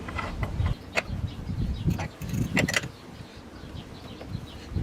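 Metal-on-metal clicks and light scraping of a crank extractor tool being fitted into an aluminium bicycle crank arm, a few sharp clicks over low handling noise.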